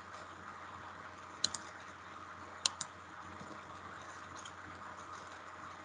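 Computer mouse clicking twice in quick pairs, about a second apart, over a faint steady hiss.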